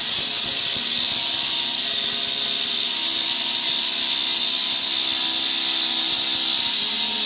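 Handheld angle grinder cutting through a granite countertop slab: a steady, high-pitched grinding whine.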